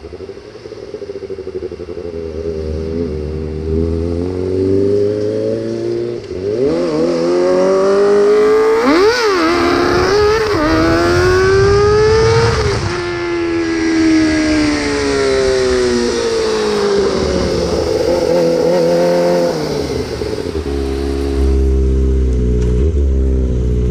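Kawasaki ZX25R's inline-four engine through an Austin Racing exhaust, revving up hard with a couple of quick sharp blips in the middle, then falling in pitch as it slows. It rises briefly once more before settling to a lower, steadier note with a low wind rumble near the end.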